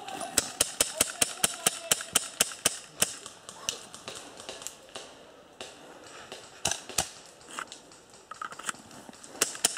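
Airsoft pistol firing a rapid string of sharp shots, about five or six a second for nearly three seconds, followed by scattered single shots.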